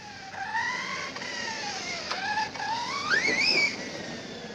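Redcat Kaiju electric RC monster truck's brushless motor and drivetrain whining, the pitch rising and falling with the throttle and climbing highest about three seconds in.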